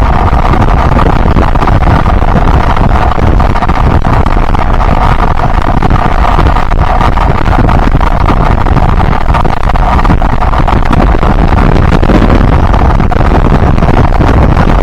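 Yamaha Byson single-cylinder motorcycle engine running steadily while riding, with wind rushing over the microphone.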